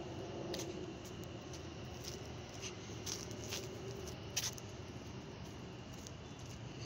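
Metrolink commuter train passing some way off, heard faintly as a steady low rumble and hiss, with scattered light clicks and taps from the phone being handled close to a chain-link fence. The sharpest click comes about four and a half seconds in.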